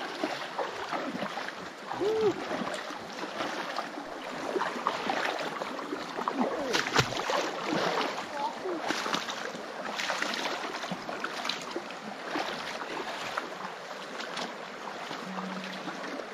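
Feet wading through a shallow, stony creek: water splashing and sloshing around the legs with each irregular step, over the steady rush of the stream.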